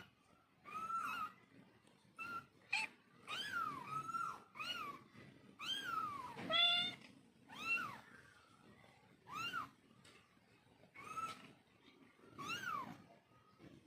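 Kittens meowing: a string of short, high-pitched mews, each rising and falling, roughly one a second with short gaps between them.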